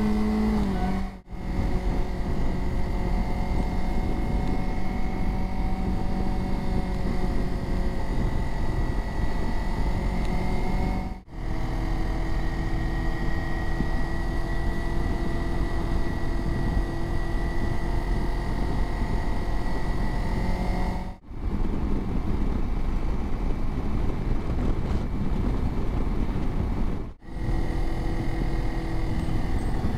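Kawasaki Versys motorcycle engine running under way, with a steady drone and road and wind noise; the pitch shifts a little with speed. The sound drops out briefly four times.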